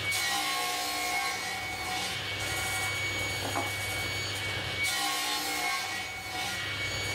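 Table saw running steadily with a constant hum and whine, its blade cutting through a wooden board on a crosscut sled twice: once at the start and again about five seconds in.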